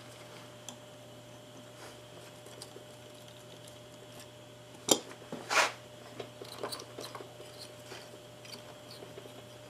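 Small metal clicks and scrapes of pliers working a cotter pin on a steel floor jack, with one sharp click about five seconds in and a short scrape just after, over a faint steady hum.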